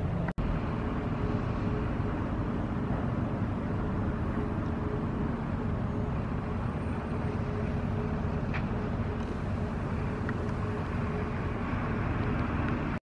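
Steady low outdoor rumble of harbour ambience with a faint steady hum in it, cut out for an instant about a third of a second in.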